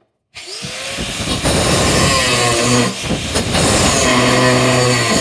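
Handheld angle grinder starting up with a rising whine, then grinding a metal sword blade with a harsh, steady grinding noise over the motor's hum; it eases for a moment about three seconds in.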